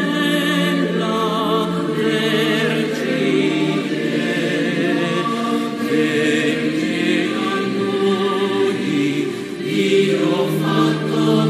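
Choir singing a sacred hymn in Italian, several voices holding long notes together with vibrato.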